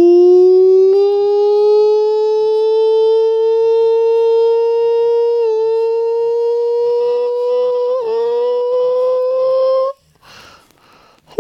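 A man's voice holding one long, high wordless note, hummed or sung on a vowel, that slowly rises in pitch. It stops about ten seconds in, a short breath follows, and a new held note begins at the very end.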